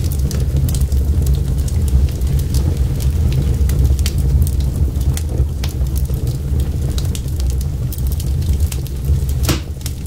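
Wood fire burning: a steady low rumble of the flames with frequent sharp crackles and pops from the logs, one louder pop near the end.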